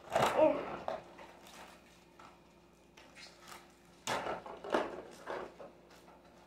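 Cardboard and plastic packaging being handled: scattered taps, clicks and rustles, with a louder cluster about four seconds in. A short pitched sound comes right at the start.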